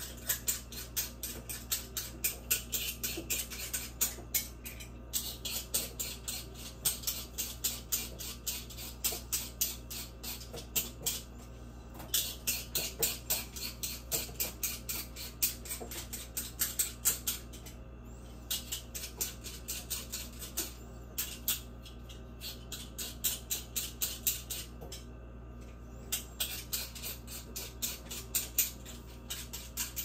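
Vegetable peeler scraping the skin off potatoes in quick repeated strokes, about three a second, with short pauses every several seconds as the potato is turned or changed.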